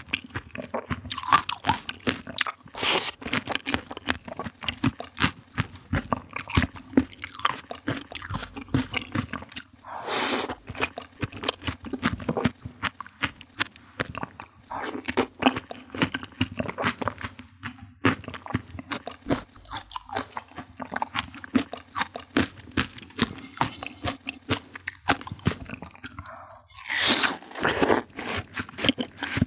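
Close-up eating sounds of a person biting and chewing fruit: crunching bites and chewing, with a louder crunch every few seconds.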